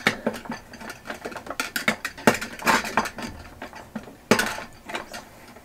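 Metal wire whips and plastic bowl scraper being fitted onto the centre drive of a Bosch Universal Plus mixer bowl: an irregular string of metal and plastic clicks, rattles and clacks, with sharper clacks about two and a half and four and a half seconds in. The mixer's motor is not running.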